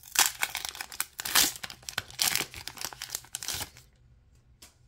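Foil wrapper of a Pokémon card booster pack being torn open and crinkled in the hands: irregular bursts of crackling rustle that stop about three and a half seconds in.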